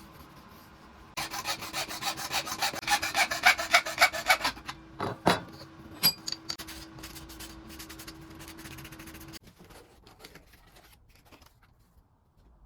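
Rapid back-and-forth abrasive strokes on wood for about three seconds, then a few light knocks and clicks, over a faint steady hum.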